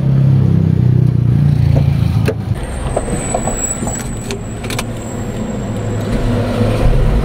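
Car engine idling with a steady low hum, louder for the first couple of seconds. A few sharp clicks and knocks come between about two and five seconds in.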